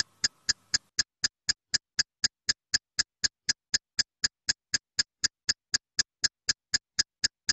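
Quiz-timer ticking sound effect: a sharp, clock-like tick about four times a second, evenly spaced.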